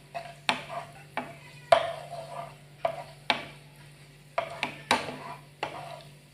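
Spatula scraping and knocking against a non-stick frying pan while stirring frying garlic and onion: about a dozen irregular strokes, over a steady low hum.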